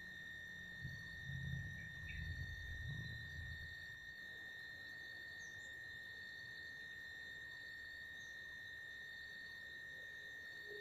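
Faint, steady high-pitched drone of forest insects, such as crickets or cicadas, holding one even pitch with fainter higher tones above it. A low rumble sits under it for the first few seconds and then stops.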